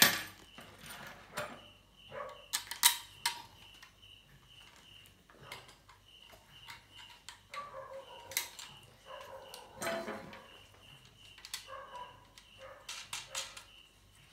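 Sharp metal clicks and taps from an aluminium TV antenna's rods, boom and plastic washer being handled as the reflector is fitted and its nut tightened by hand.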